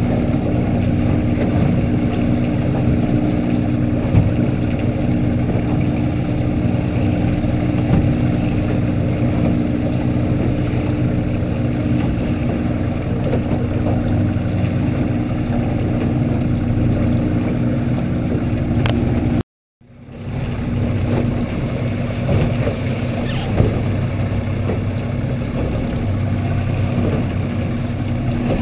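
Small motorboat's engine running steadily, a constant drone with a low hum, under the noise of the water. The sound cuts out for a moment about 19 seconds in and fades back up.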